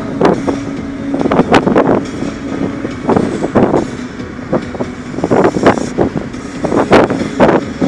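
Wind buffeting the phone's microphone in a moving car, in irregular gusts over the steady rumble of the road and engine.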